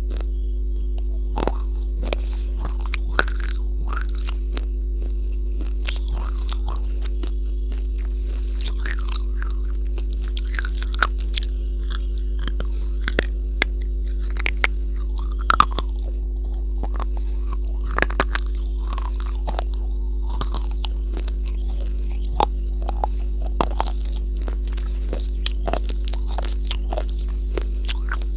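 Close-miked biting and chewing of a hard, chalky white chunk: irregular sharp crunches scattered through, over a steady low hum.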